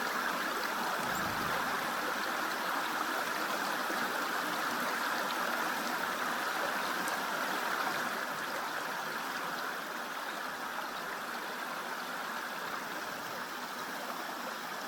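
Creek water running with a steady rushing babble, getting a little softer about two thirds of the way through.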